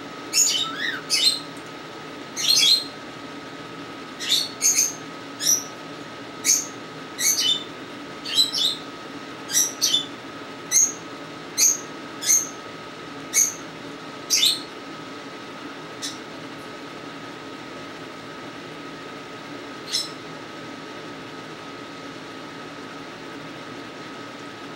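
Cockatiel giving short, sharp chirps, about one or two a second for the first fifteen seconds, then two more spaced out; a faint steady high tone runs underneath.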